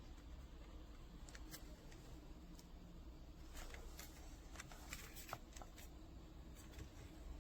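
Faint, scattered small clicks and light rustles over a low steady hum, the clicks bunching up about halfway through.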